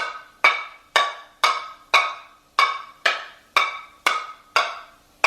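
Metal cooking pots being banged, about two clangs a second in an even beat, each clang ringing briefly before the next.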